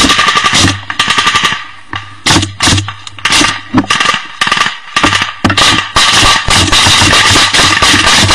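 Machine gun firing in bursts at close range: rapid fire for about the first second and a half, then scattered shots with a brief lull around four and a half seconds in, then long rapid bursts again from about five seconds in.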